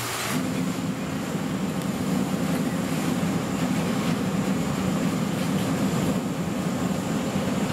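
Fire engine's diesel engine running steadily at raised speed, driving its pump; the low drone comes in strongly about half a second in and holds over a background hiss.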